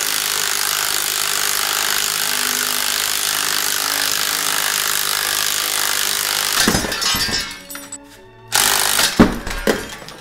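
Cordless impact wrench running steadily on the top nut of a coil-spring strut held together with no spring compressor. About seven seconds in the nut lets go and the compressed spring pops loose with heavy thumps, followed a second or two later by more loud clattering.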